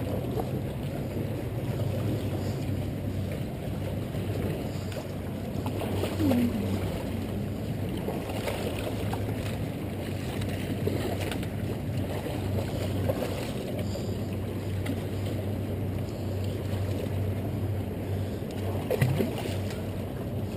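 Steady wind rumble on the microphone mixed with waves washing against the jetty rocks, with a couple of brief louder bumps.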